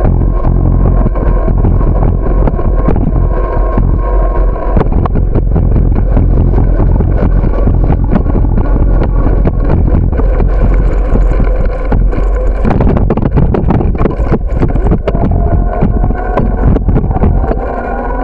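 Wind buffeting the microphone of a camera riding on a moving bicycle, a loud steady rumble, with frequent clicks and knocks from the camera and bike jolting over the sidewalk.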